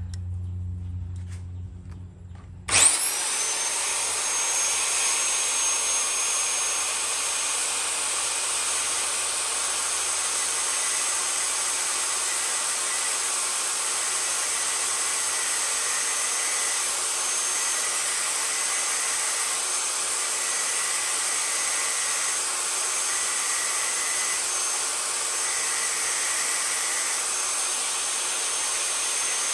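RYU 7-inch sliding miter saw motor switched on a few seconds in, spinning up quickly with a rising whine, then running steadily with a small abrasive cut-off disc fitted in place of its wood blade.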